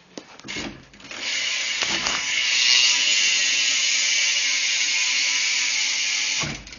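BMX rear hub freewheeling, its pawls ratcheting so fast they make a steady buzz. A few single clicks come first, the buzz starts about a second in and cuts off sharply just before the end.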